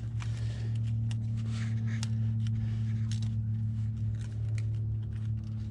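Nylon zip tie being fed through and pulled tight, a run of small irregular clicks with a brief rustle, over a steady low hum.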